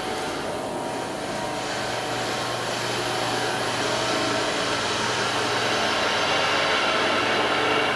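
Steady machine whoosh, like a fan or blower running, with a faint low hum, slowly growing louder.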